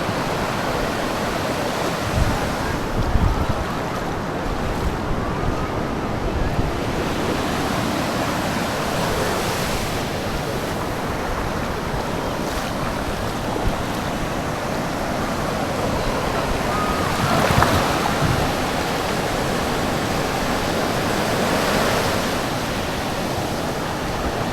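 Sea waves washing onto a sandy beach, surging now and then. Wind buffets the microphone in low thumps a few seconds in.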